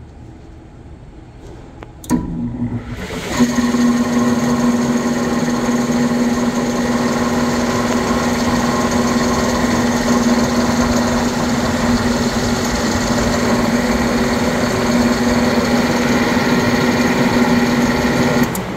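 Air-conditioner squirrel-cage blower fan starting up about two seconds in, spinning up within a second or so, then running with a loud, steady hum and whir. The sound falls off near the end.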